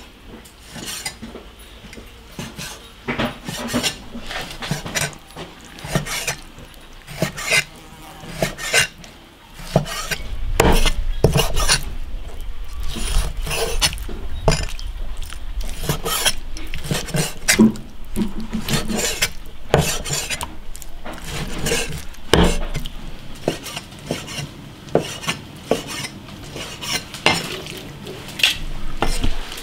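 A cleaver chopping raw mutton into chunks on a thick wooden chopping block: a run of irregular knocks, with deeper thuds from about ten seconds in.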